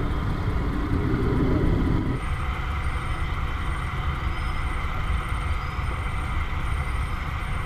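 Steady low rumbling noise. A lower hum drops away about two seconds in, and faint high ticks repeat evenly through it.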